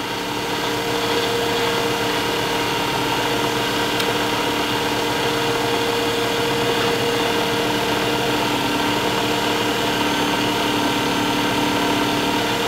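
Small wood lathe running at a steady speed with a steady hum, while a paper towel is pressed against the spinning wooden bottle stopper to friction-polish its oil, shellac and wax finish.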